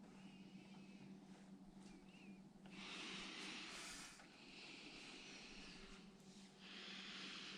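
Faint, slow breathing of a person close to the microphone: three breaths in the second half, over a faint steady low hum.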